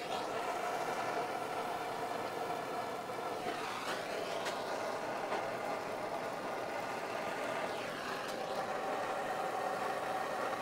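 Blowtorch flame burning steadily with a constant rushing hiss, with a few brief ticks.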